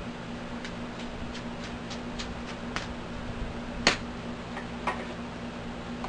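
Light metallic clicks, about three a second, then one sharper click about four seconds in and two fainter ones after it: a small T6 Torx screwdriver and screws working the mounting screws off a laptop hard drive.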